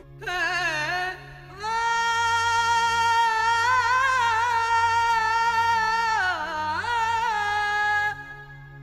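Background music: a solo voice sings a long, wavering held note with ornamented slides over a steady low drone, and the phrase fades about a second before the end.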